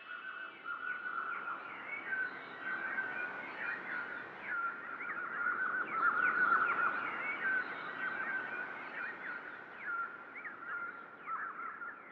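Many small birds chirping and twittering at once, a dense chorus of short, quick calls that swells to its loudest about halfway through.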